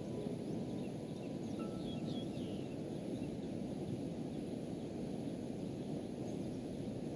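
Steady low outdoor noise of wind with a few short high bird chirps about two seconds in.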